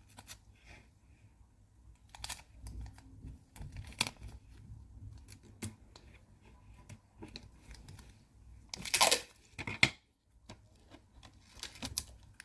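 Clear sticky tape and paper being handled and pressed down, small crackles and clicks throughout, with two short, louder rips of tape late on.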